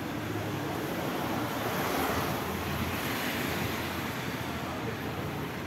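Street traffic on wet asphalt: a steady hiss of tyres on the wet road, swelling as a vehicle passes about two seconds in.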